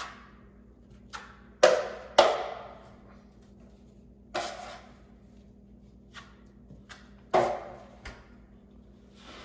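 A hand tool knocking against a drywall corner as it is reworked: a series of sharp knocks at uneven intervals, the loudest few with a short ring.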